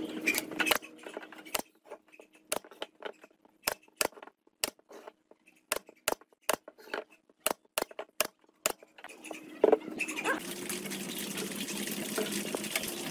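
Pneumatic brad nailer firing into pine boards: a dozen or more sharp shots at uneven intervals, some in quick runs. Near the end a steady hissing hum takes over.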